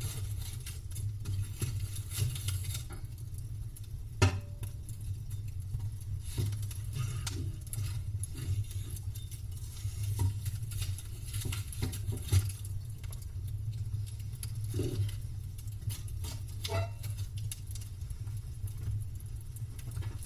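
Campfire crackling: irregular snaps and pops of burning wood over a low steady rumble, with a sharper pop about four seconds in and another near the middle.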